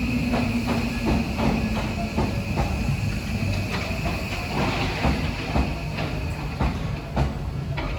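Electric commuter train running along the rails, its wheels clicking over rail joints about twice a second over a low rumble, with a steady high-pitched whine that fades near the end.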